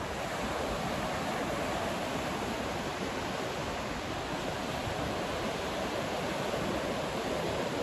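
Ocean surf breaking and washing onto a sandy beach, a steady rushing noise.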